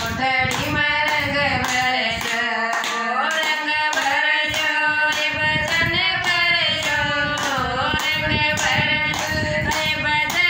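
Two women singing a Haryanvi bhajan, keeping time with steady hand claps about two a second.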